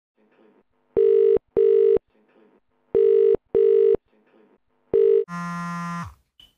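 Telephone ringback tone in a double-ring pattern, two short rings then a pause, twice, with a third ring cut short. It is followed by a mobile phone vibrating against a hard floor, a buzz of under a second that winds down in pitch as it stops.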